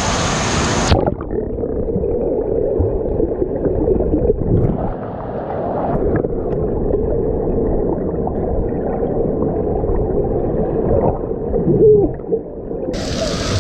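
Pool water heard with the microphone underwater: a muffled, low gurgling rumble with bubbling and no high end. About a second in, the open rush of splashing water cuts out into this muffled sound, and the open rush returns near the end.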